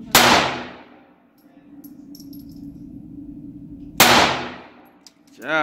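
Two pistol shots about four seconds apart, each a sharp crack with a short echoing tail off the walls of an indoor shooting range.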